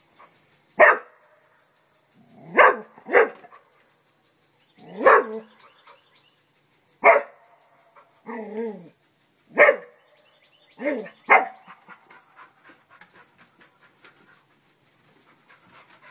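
English Springer Spaniel barking in single sharp barks, one every second or two, with one longer drawn-out note near the middle. It is alarm barking at a turtle that the dog treats as an intruder.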